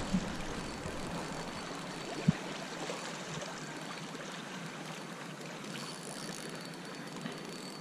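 River water flowing and lapping at the bank, a steady hiss, with one sharp knock about two seconds in.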